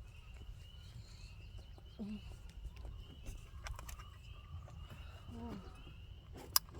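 Crickets chirping in a steady, even rhythm of about three high chirps a second over a low background rumble, with a single sharp click near the end.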